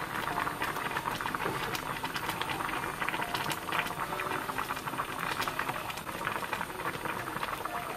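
Red chili broth of braised hairtail bubbling at a simmer in a frying pan: a steady crackle of many small popping bubbles.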